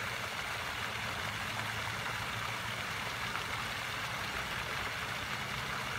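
Pond fountain spraying and splashing into the water: a steady, even rushing hiss, with a faint low hum beneath it.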